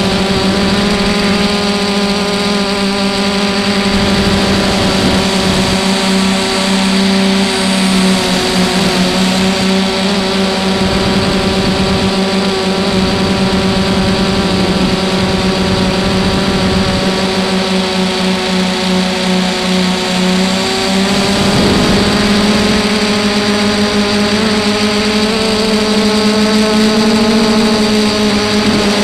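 Electric motors and propellers of an FPV drone whining steadily in flight, picked up by its onboard camera's microphone, with small shifts in pitch as the throttle changes. A hiss of rushing air runs under the whine.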